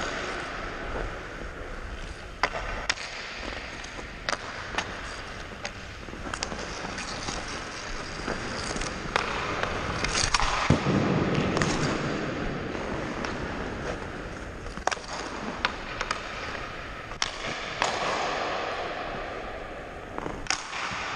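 Ice hockey skates gliding and scraping on rink ice, with sharp clacks of a hockey stick blade against the puck and the ice every second or two, heard from a helmet-mounted camera. A couple of longer, louder scrapes stand out, the biggest about halfway through.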